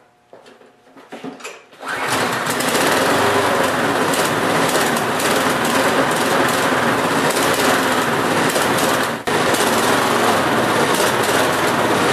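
Briggs & Stratton Quantum single-cylinder lawnmower engine starting about two seconds in, then running steadily. It keeps running only while the primer bulb is pushed again and again, which the owner takes for a dirty carburetor with varnished old gas after years of storage.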